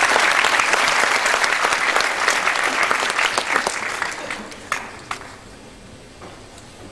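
Audience applauding, then dying away after about four seconds, with a couple of last single claps near the end.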